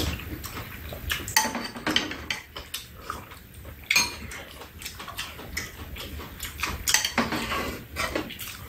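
Metal spoons and chopsticks clinking and scraping against bowls and a metal tray at a meal, with eating noises: slurping soup and chewing.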